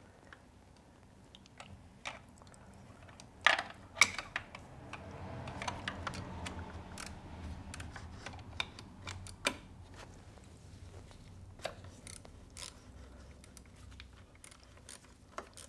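Hand ratchet clicking and metal tools clinking while Torx bolts are undone on a diesel engine's EGR cooler. Two sharper knocks come about three and a half and four seconds in.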